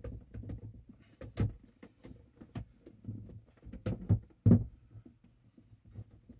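Old battery pack being slid out of an APC RS1500 UPS's plastic battery compartment: scraping with a series of hard plastic knocks and clunks, the loudest about a second and a half in and two more just past four seconds.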